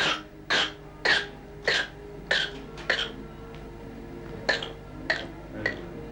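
A young child with whooping cough (pertussis) in a coughing fit: six short coughs in quick succession about half a second apart, a pause of over a second, then three more.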